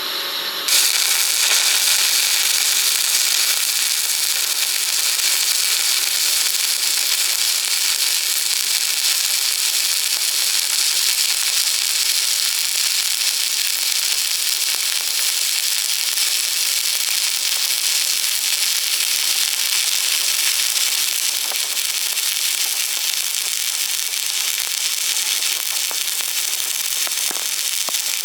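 Electric welding arc: it strikes about a second in and then burns steadily with a dense, loud crackling hiss, strongest in the high range.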